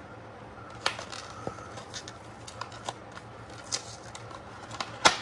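Small computer parts handled by hand: scattered light clicks and plastic rustling, with a sharp click about a second in and a louder one near the end. A steady low hum of room equipment runs underneath.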